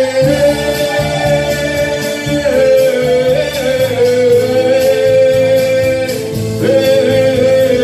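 Man singing long held notes over a karaoke backing track.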